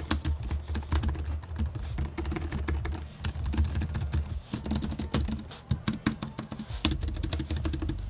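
Typing test on a Logitech MX Keys Mini's low-profile scissor-switch keys: a quick, continuous run of key clicks.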